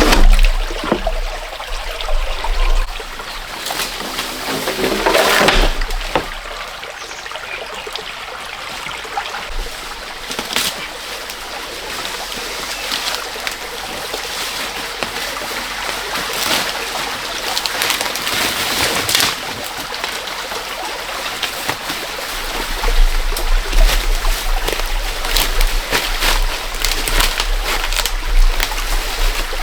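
Water trickling and splashing, with scattered clicks and a steady hiss.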